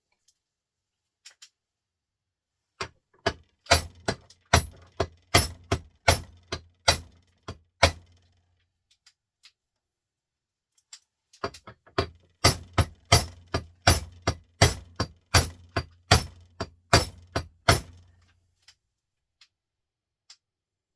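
Repeated sharp metallic strikes, about two or three a second, in two runs with a pause between: a hammer knocking at a small printer motor's steel casing to break it open.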